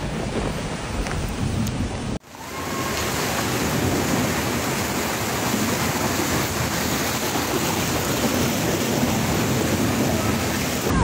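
Heavy rain pouring down in a thunderstorm, a steady dense hiss, cut off for a moment about two seconds in and then resuming just as steady.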